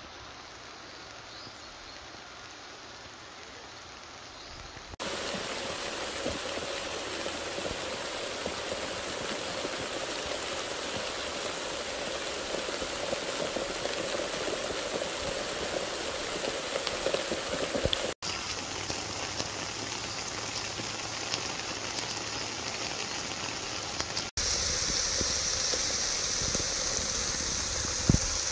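Steady rain, heard through several clips joined by hard cuts. It is fainter for the first five seconds or so, then comes in much louder.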